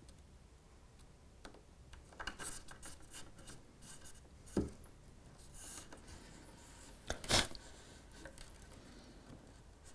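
Quiet handling sounds of thin wires rustling and scraping as they are threaded through holes in a model railway baseboard. There is a short knock about four and a half seconds in and a louder clack about seven seconds in, as the track point is set down on the board.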